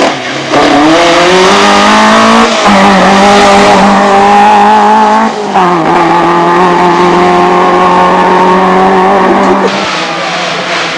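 Rally car engine at full throttle, accelerating hard out of a corner. The note climbs, then breaks and drops twice as the car shifts up, about two and a half and five and a half seconds in. It holds high, then fades near the end as the car pulls away.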